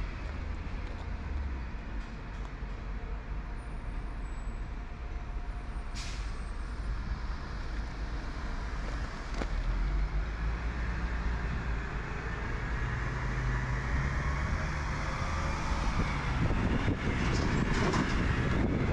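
Road traffic rumbling past, with heavy vehicles growing louder toward the end.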